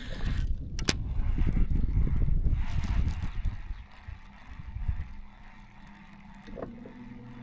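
Wind buffeting the microphone in a loud low rumble for the first few seconds, then dying down, with a faint steady low hum coming in near the end.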